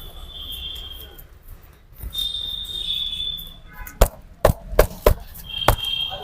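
Five sharp hand strikes of a barber's percussive massage, chopping or slapping blows on the customer's head or shoulders, landing about two seconds from the end in an uneven run.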